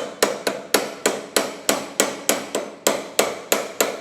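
Rapid, even hammer blows on metal, about three a second, each with a short metallic ring: the first lock nut on the Vespa VBB steering column being knocked tight.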